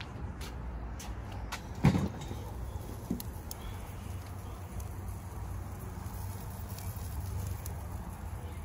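Steady low hum with scattered light clicks and one sharp knock about two seconds in.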